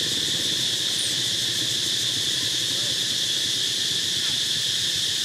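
Steady high-pitched drone of an insect chorus that runs on without a break, with a faint low jumble beneath it.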